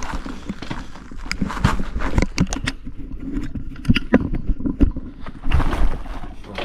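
Small motorcycle engine running, with a steady low rumble and many irregular clicks and knocks.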